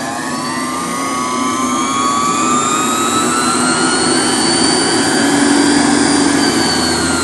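Kimble variable-speed AC repulsion motor running, its whine rising in pitch as it speeds up, holding high, then starting to drop near the end as it slows.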